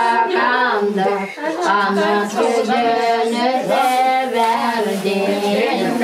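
Unaccompanied female singing, with long held notes that waver and bend in pitch.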